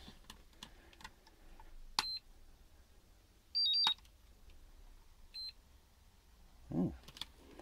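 Turnigy Accucel 6 hobby charger beeping as its buttons are pressed to start a single-cell lithium-ion charge. There is a short high beep about two seconds in, then a louder beep alternating between two pitches just before four seconds as it runs its battery check, and a fainter short beep later, with small button clicks between. A brief low voice sound comes near the end.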